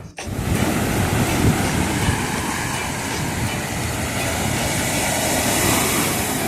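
Vehicle in motion: steady rumble of road and engine noise.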